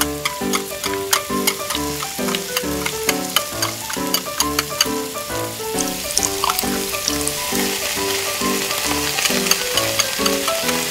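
Oil sizzling and crackling in a miniature frying pan, the sizzle growing stronger about halfway through, over background music with a steady, repeating beat.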